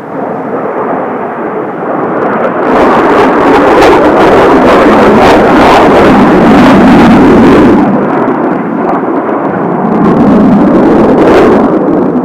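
Kawasaki T-4 jet trainers passing overhead, their turbofans making a loud rushing roar. The noise builds to a peak a few seconds in, eases off, then swells again with a second pass near the end.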